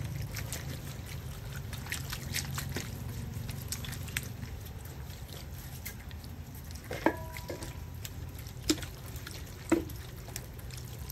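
Liquid poured from a plastic bottle over salted, scored pork belly in a stainless steel tray, and a hand rubbing and patting the wet skin, with drips and small wet clicks and a few sharper taps. A steady low hum runs underneath.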